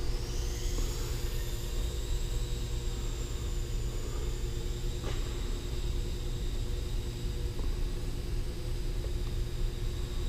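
Micro quadcopter's motors spooling up for takeoff, a high whine rising in pitch in the first second, then holding steady in flight. Under it runs a constant low rumble with a steady hum.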